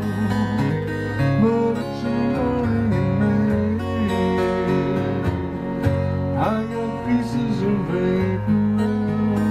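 Acoustic guitar strummed and picked in a steady chord pattern with no vocal: the instrumental ending of a song.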